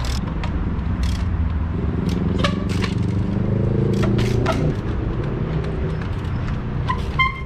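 Trials bike tyres and frame knocking and scraping against a concrete wall as a rider hops up onto it: a string of sharp knocks and clicks, over a steady low rumble of city traffic.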